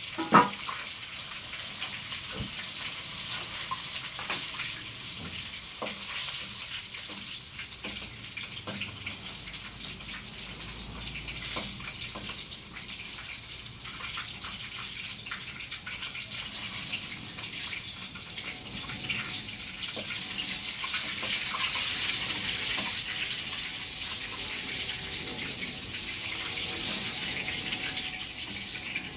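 Food sizzling in a wok on a gas stove, a steady hiss broken by the clicks and scrapes of a spatula against the pan, with a sharp clank about half a second in. The sizzle grows a little louder about two-thirds of the way through.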